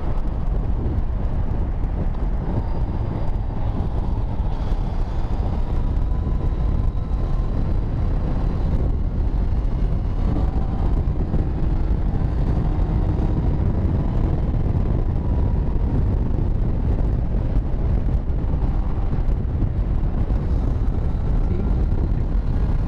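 Wind rushing over the microphone of a moving motorcycle, with the Yamaha MT-09's three-cylinder engine faint beneath it, its pitch drifting slowly up and down as the bike cruises.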